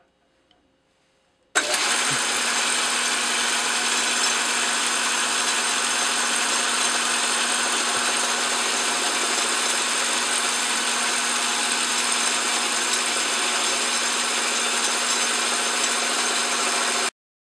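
Metal lathe running, turning an aluminum workpiece between centers with a high-speed steel tool bit taking a cut: a steady motor hum under an even hiss. It starts suddenly at full level about a second and a half in and stops suddenly near the end.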